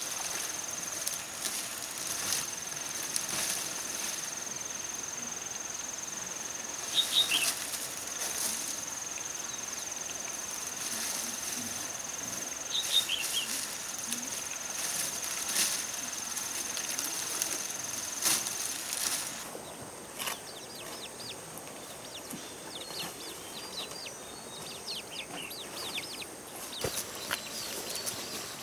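Forest ambience: a steady high-pitched insect drone, with a few short falling bird chirps and scattered light clicks and rustles. About two-thirds of the way through, the drone jumps higher in pitch and the background noise drops.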